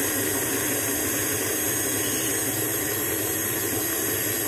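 Electric stand mixer running steadily, its flat beater churning a thick butter, sugar and egg batter in a steel bowl.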